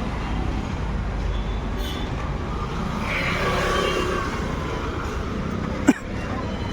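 Maruti Suzuki WagonR engine running with a steady low rumble, and one sharp click about six seconds in.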